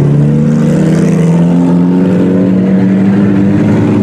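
IMCA Sport Compact race car engines running on a dirt oval. One four-cylinder engine stands out, its pitch climbing slowly and steadily as the car accelerates.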